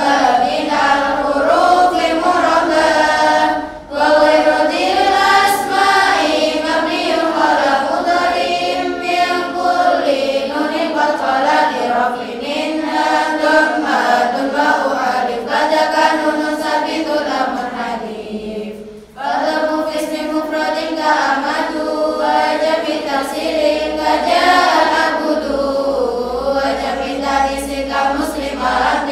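Lalaran: a large group of girls chanting Arabic grammar verses from memory in unison to a simple sung melody. The chant breaks off briefly twice for breath between verses.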